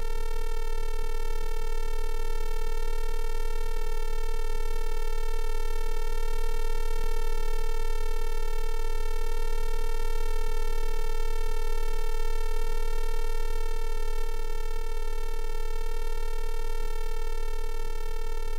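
Bedini self-oscillating fan motor's pulsed coil whining: a steady electronic tone that holds one pitch throughout, with a row of overtones.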